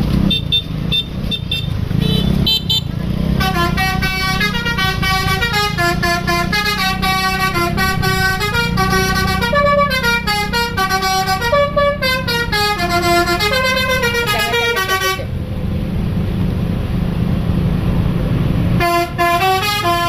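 Bus 'basuri' telolet musical horn playing a stepped multi-note melody. It plays for about twelve seconds, stops, then starts up again near the end, over the steady low rumble of the engine. A few short high beeps come in the first seconds.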